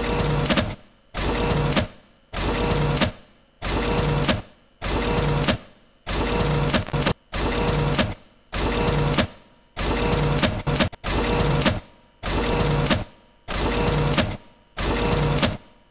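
Office photocopier running through copies: a mechanical whirring pulse for each sheet, repeating about once every 1.2 seconds in a steady rhythm.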